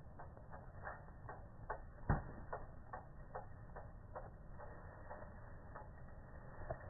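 Clock ticking, a steady even tick about two and a half times a second, with one louder low thump about two seconds in.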